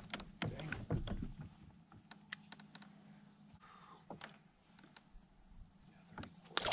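Quiet, scattered clicks and light knocks of fishing tackle in a kayak as a lure is reeled in and cast again, with a sharper cluster of clicks near the end.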